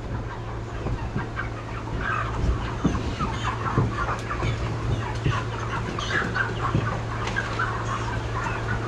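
A crowd of meat chickens clucking constantly inside plastic transport crates, with scattered knocks as the crates are slid and set down, over a steady low hum.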